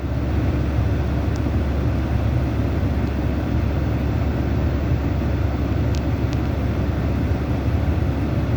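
Steady low rumble of a vehicle in motion, holding even throughout, with two faint clicks about six seconds in.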